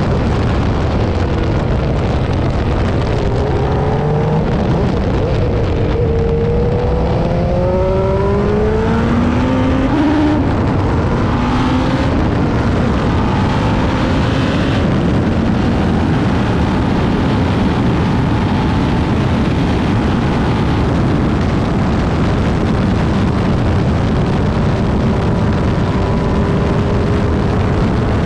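Cosworth V8 of a historic AGS Formula 1 car at racing speed, heard from a camera on the car: the engine note climbs in several rising sweeps as it pulls through the gears, then holds a steady high note.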